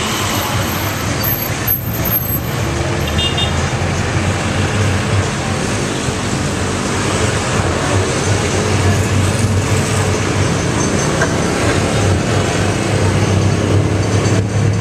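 Traffic and road noise heard from inside a moving vehicle: a steady low engine drone with tyre and wind noise and the sound of other vehicles passing.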